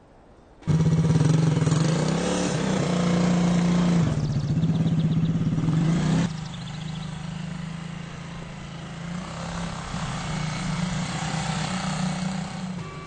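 A motor vehicle engine running, cutting in abruptly about a second in with a steady low hum and fast regular firing pulses, then dropping to a quieter steady drone about six seconds in.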